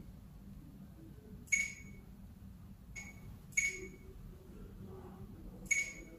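Four short, high-pitched click-beeps from a tablet oscilloscope's touchscreen, one for each tap on the screen, over a faint low hum. The third beep is softer than the others.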